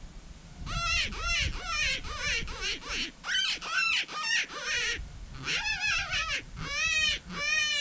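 Mouth-blown predator hand call sounding a rapid series of short distress cries, each note rising and falling in pitch, with brief pauses about three and five seconds in.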